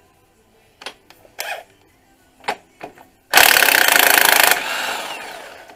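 A few light metal clinks as the socket is seated, then an impact wrench hammering a 17 mm engine-mount bolt for about a second, its sound fading away over the next second.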